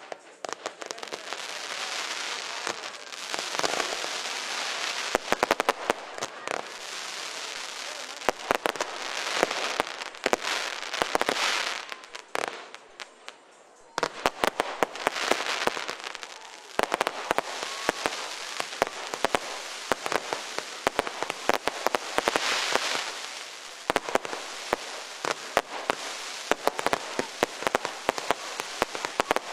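Fireworks going off: a dense crackling hiss with many sharp pops, dying down briefly about halfway through and then starting up again.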